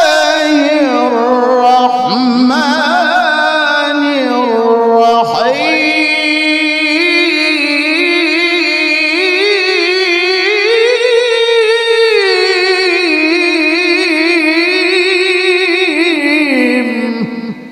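A male qari reciting the Qur'an in melodic tilawah style into a microphone. It is one long, ornamented sung passage with a wavering vibrato and pitch glides, dipping around two and five seconds in. It then holds a long note and fades away at the very end.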